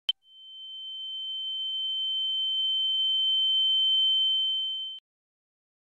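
A sharp click, then a single steady high-pitched electronic tone that swells up over about four seconds and cuts off suddenly about five seconds in: the sound effect of a channel's intro title.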